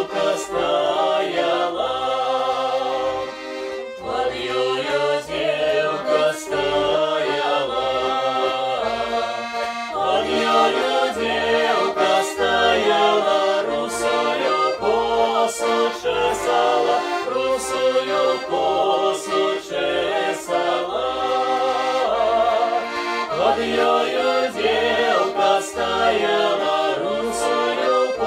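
A mixed group of men's and women's voices singing a Belarusian folk song in harmony, accompanied by a button accordion playing a steady rhythmic bass-and-chord pattern.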